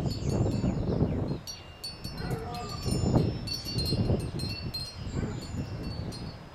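Wind chimes ringing, several high clear tones struck again and again, over wind gusting on the microphone.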